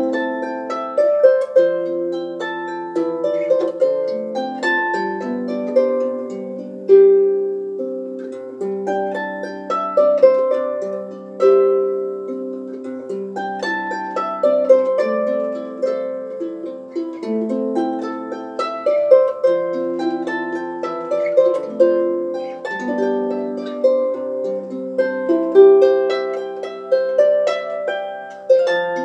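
Solo harp playing: a small wooden harp plucked by hand, with a melody of ringing notes over lower bass notes, continuing without a break.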